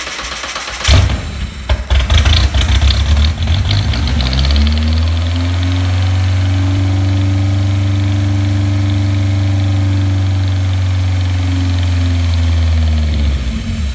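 Saturn four-cylinder engine cranked on its starter, catching about a second in and running roughly for a few seconds before settling into a steady idle. It runs only on gasoline vapour from a soaked rag held over the throttle body, since no fuel reaches it from the tank. Near the end it slows and dies.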